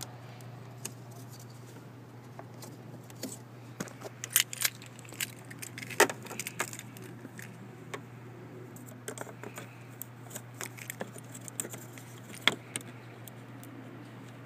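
Scattered sharp clicks and small rattles of fingers working at a tight relay in a plastic under-hood fuse and relay box, trying to pull it out. A steady low hum runs underneath.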